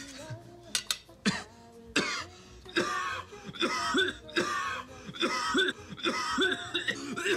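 A young man coughing over and over: a long run of short coughs about two a second, starting about two seconds in, after a few single coughs.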